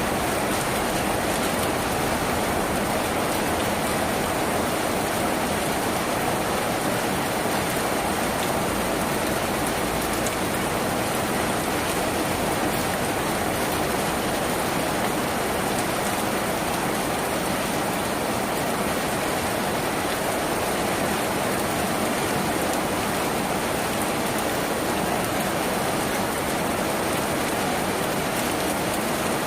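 Steady, even rain falling on a tin house.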